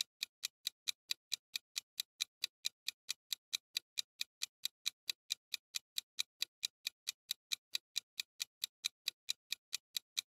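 Countdown-timer clock ticking sound effect: short, evenly spaced ticks, about four to five a second, marking the seconds left to answer.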